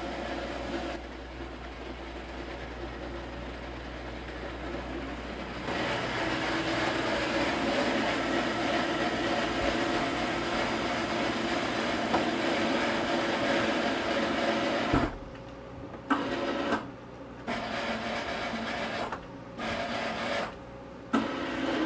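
Powered tender lift motor hoisting the tender: a low hum at first, then a louder steady machine whine from about six seconds in. Near the end it is switched on and off in several short runs as the tender is jogged up into its cradle.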